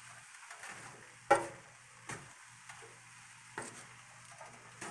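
Wooden spatula stirring and breaking up fried rice in a skillet, with a few sharp knocks of the spatula against the pan, the loudest a little over a second in, over a faint sizzle of the frying rice.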